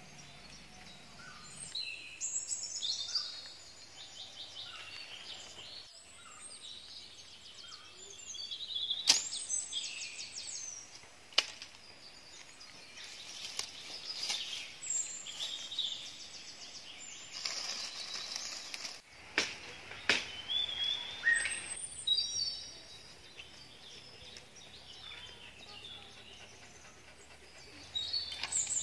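Birds chirping and whistling, many short calls and rising and falling whistles overlapping, with a few sharp clicks or snaps near the middle.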